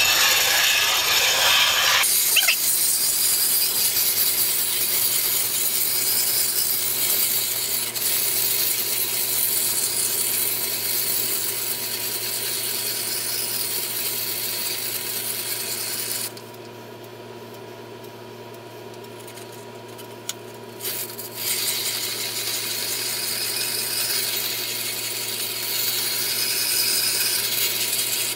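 Stanley No. 8 plane iron being ground on the wetted stone wheel of a treadle grinder: a steady hiss of steel on stone as the edge is worked to grind out nicks. The hiss stops for about five seconds past the midpoint while the blade is off the wheel, then starts again.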